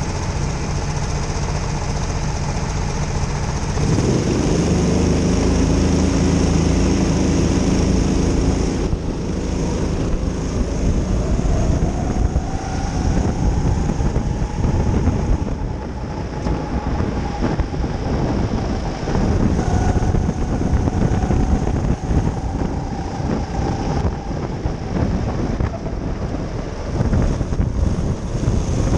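Rental go-kart engines idling on the grid, then about four seconds in the onboard kart's engine opens up as the field accelerates away from the start. Its pitch climbs and holds high along the straight, with a brief drop before it rises again.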